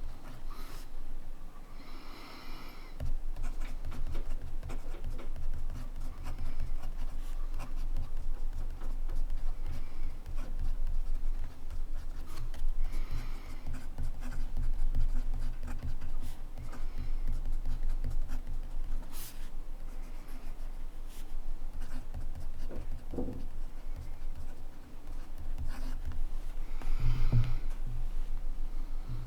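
Montblanc Meisterstück 144 fountain pen writing on paper: a steady run of nib strokes scratching across the page, with small ticks as the nib lifts and lands.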